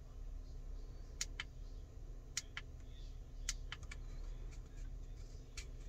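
Faint sharp clicks, several in quick pairs like a press and release, from the push buttons on a handheld AMACOOL battery fan being pressed.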